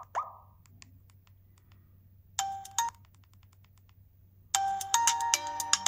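Alcatel 3088 4G feature phone's loudspeaker playing a ringtone preview at full volume: a short two-note chime about two and a half seconds in, then a chiming ringtone melody starting loudly a little past halfway. At the very start, one last beep from the volume key.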